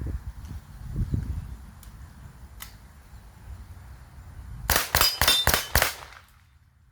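B&W S45 semi-automatic .45-calibre air rifle fired in a rapid string of about five shots, a quarter second or so apart, about five seconds in. A couple of low thumps come near the start.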